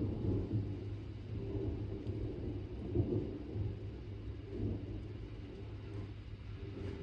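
Thunder rumbling in several swells that rise and fade, loudest near the start and again about three seconds in, over a steady low background rumble.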